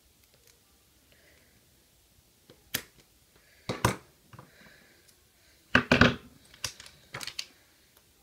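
Fidget spinners being handled: sharp plastic clicks and knocks as the thumb caps are pulled off and swapped. There is a single click about three seconds in, a louder one near four seconds, a cluster around six seconds and a few more toward the end.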